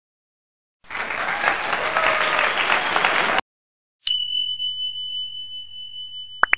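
A burst of applause lasting about two and a half seconds that cuts off abruptly, then a single bell-like ding that rings on with a long fade, and a sharp click near the end.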